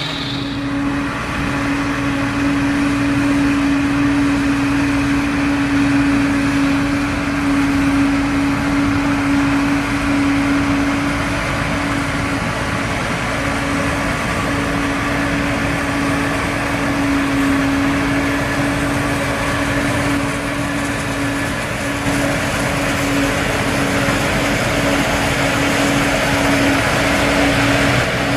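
Heavy farm machinery running steadily, with a constant hum over the engine noise.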